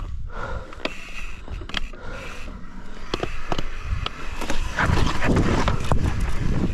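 Mountain bike rolling over rock slabs and loose stones, its tyres scraping and knocking and the bike rattling and clicking at each bump. It gets louder and busier about halfway through as the bike drops onto rougher rock.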